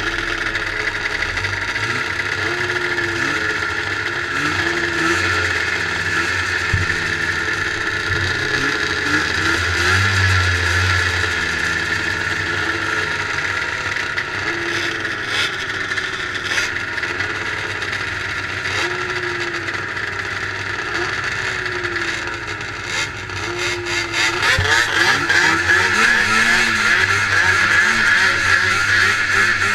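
Several liquid-cooled 440 two-stroke race snowmobile engines idling, with short throttle blips every couple of seconds. The revving grows louder near the end as the sleds move up to the start line.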